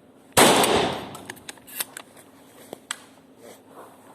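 A pump-action shotgun fires once, a loud crack with an echo dying away over about a second, followed by a few light clicks; the next shot begins right at the end.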